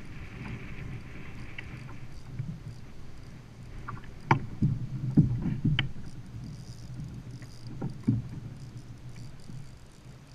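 Plastic fishing kayak on the water: a steady low rumble of water and hull movement, with a cluster of sharp knocks on the hull a little before the middle and two more later on.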